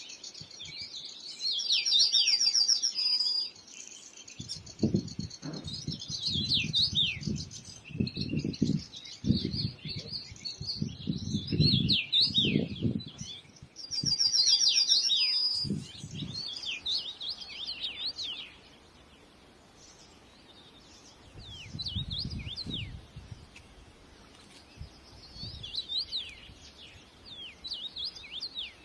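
Small birds chirping and calling continuously, with many short, quick high chirps and some brief trills. A low, irregular rumble comes and goes in bursts through the first half and briefly again later.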